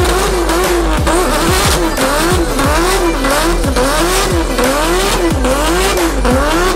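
Red Mk4 Toyota Supra's straight-six engine held high in a burnout, the revs rising and falling in a regular wavering pattern, with the rear tyres squealing as they spin.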